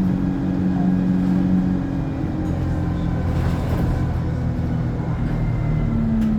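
ADL Enviro 200 single-decker bus running under way, its engine and Allison gearbox giving a steady low drone that changes pitch about two seconds in and again near the end. A faint high turbo whine sits above it in the later part.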